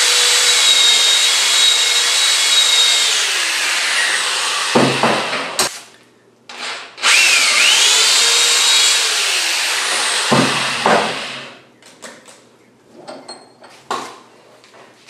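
Corded electric hand drill with a 3/8-inch chuck, boring a half-inch hole into a wooden hub with a reduced-shank bit. The motor whines at speed for about four seconds and winds down, then runs again for about three seconds and winds down. A few light knocks of handling come near the end.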